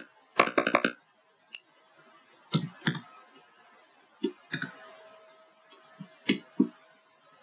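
Typing on a computer keyboard: a quick run of keystrokes in the first second, then single key or mouse clicks every second or so.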